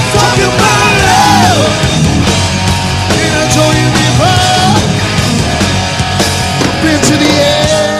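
Live hard-rock band playing loud: distorted electric guitar with bending lead lines over bass and drums. Near the end a long note is held.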